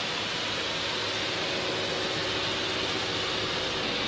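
Steady drone of an Antonov An-2's nine-cylinder radial engine and propeller in cruising flight, heard inside the cabin as an even, unchanging rush of noise.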